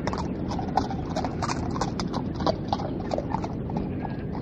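Horse hooves clip-clopping in an irregular walking rhythm over a steady rushing noise, as a recorded sound effect.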